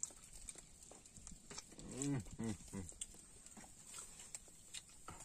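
Faint crinkling of a plastic bag and small clicks as fingers pick apart grilled fish, with two short, low calls in quick succession about two seconds in.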